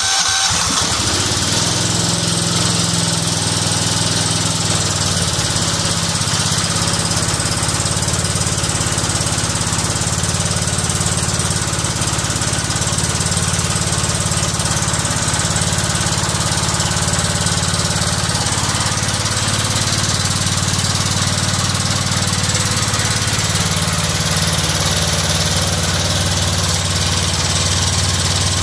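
Kohler Command CH16 single-cylinder engine catching about half a second in after cranking, then running steadily. It is running on a newly fitted Kohler ignition module that replaced the faulty ignition coil.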